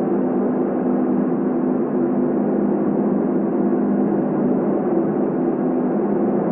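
Ambient drone music: a steady, unbroken layer of sustained low tones under a dense wash of noise.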